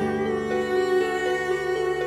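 Background music: a slow cello piece, with a held low note under a line of short melody notes.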